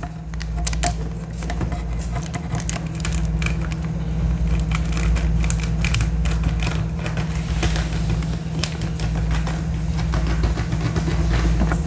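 Clear plastic shopping bag being handled and opened to get at a phone box, crinkling with many irregular sharp ticks. Under it runs a steady low machine hum.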